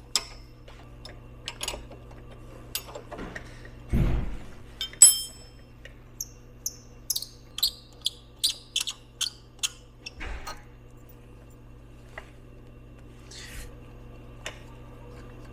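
Hand tools removing the brake caliper bolts on a Ural sidecar motorcycle's front wheel: scattered sharp metallic clicks and clinks, with a dull thump about four seconds in and a run of quick clicks from about seven to ten seconds in, over a steady low hum.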